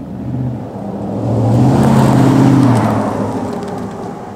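Ford F-150's 5.0 V8 exhaust through a Magnaflow muffler, running and then revved once. The note swells to its loudest about two seconds in and settles back.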